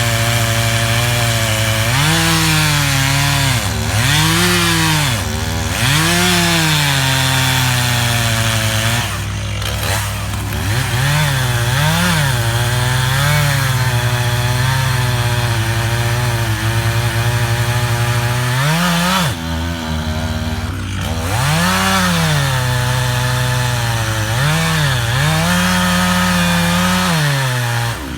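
Stihl MS311 two-stroke chainsaw running at high revs in a cut through a big hickory trunk. Its pitch rises and falls again and again as the bar works the wood.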